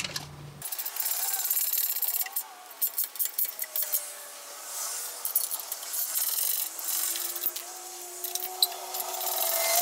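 Hand tools working on a motorcycle's slip-on exhaust: irregular clicks and scraping of a wrench against metal as the muffler's clamp bolt is loosened and the pipe is set in place.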